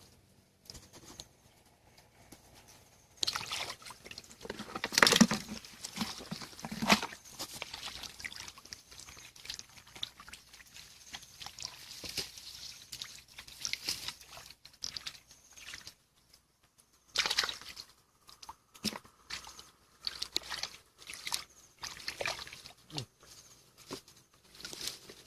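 Irregular splashing and sloshing of shallow muddy water as hands grope through it for fish, in short bursts of differing strength with quieter gaps between.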